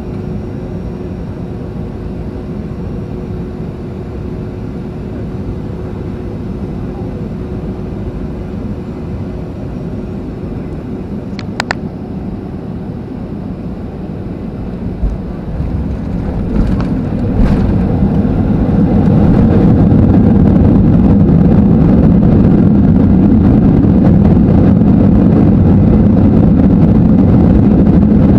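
Cabin noise inside a Boeing 737-800 with its CFM56-7B turbofan engines. A single chime sounds, a few knocks follow, then the engine noise rises over a couple of seconds to a loud, steady roar.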